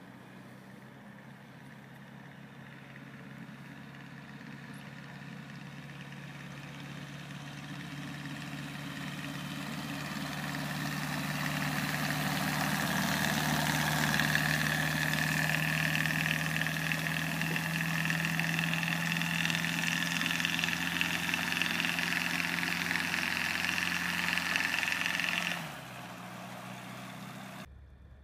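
MPX light aircraft's piston engine and propeller running as the plane taxis along a grass strip, growing steadily louder as it comes near and then holding loud and steady with a high whine over the hum. The sound cuts off suddenly near the end.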